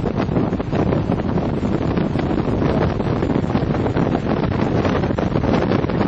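Steady, loud rushing noise inside the cabin of a 2006 BMW E46 M3 at track speed: the car's inline-six engine, tyre and road noise and wind all blurred together, with wind buffeting the microphone.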